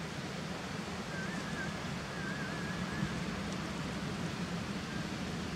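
Steady outdoor rushing noise of wind and moving water on a riverbank. A faint wavering whistle comes in about a second in and lasts a couple of seconds.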